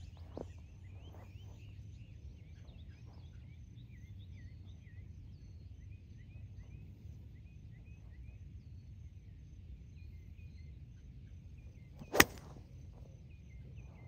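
A single sharp crack of a golf iron striking the ball, about twelve seconds in: a well-struck 3-iron shot.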